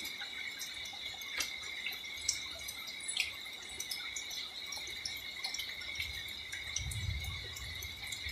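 Night insect chorus, typical of crickets: a steady high trilling on two pitches that never lets up, with a few faint clicks scattered through it and a low rumble near the end.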